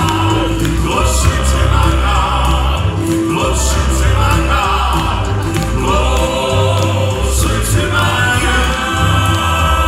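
Male gospel quartet singing in close four-part harmony into microphones, over a steady bass accompaniment.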